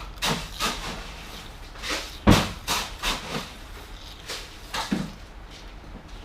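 Someone eating noodle soup: a run of short crunches and clatters, with one louder knock about two seconds in and a few brief low hums of enjoyment.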